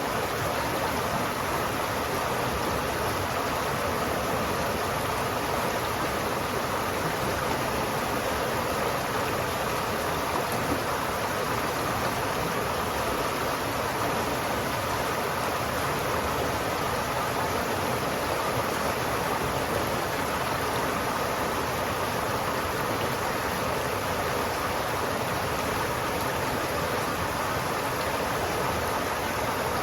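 River water flowing steadily, a continuous even rush with no breaks or separate splashes.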